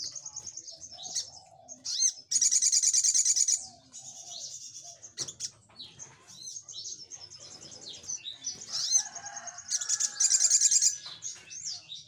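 Male olive-backed sunbird (sogok ontong) singing: high thin chirps and twitters, broken twice by a loud, rapid, rattling trill lasting about a second, once about two seconds in and again near the end.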